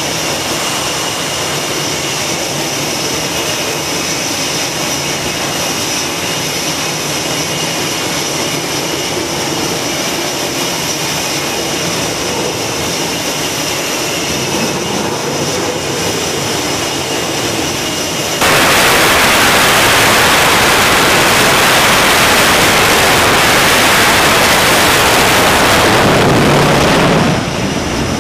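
F/A-18F Super Hornet's twin turbofan jet engines running on a carrier catapult with a steady high-pitched whine. About 18 seconds in they jump abruptly to a much louder full-power rush for the catapult launch, which falls away a second before the end as the jet leaves the deck.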